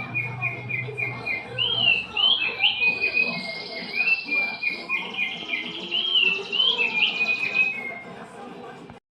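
Opior (white-eye) singing: quick runs of clear, short whistled notes with rising and falling glides, as used in a song-training 'masteran' recording. A steady insect-like buzz joins about two seconds in and grows louder about halfway through.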